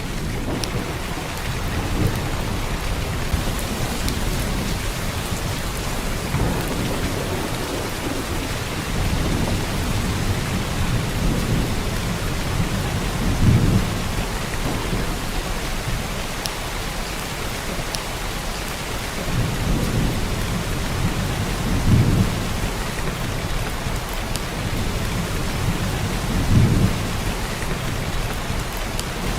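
Heavy rain pouring down steadily, a dense even hiss of drops. Deep low rumbles swell up several times, loudest about halfway through, again about two-thirds in, and near the end.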